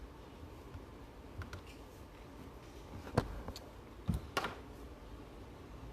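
A few separate faint clicks and taps, the loudest a little over three seconds in and two more around four seconds in: small handling noises at a table.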